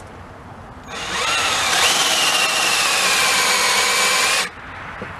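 Cordless drill boring a 5/8-inch hole into an aluminium piston, starting about a second in and running for about three and a half seconds with a motor whine that drops slightly in pitch, then stopping abruptly.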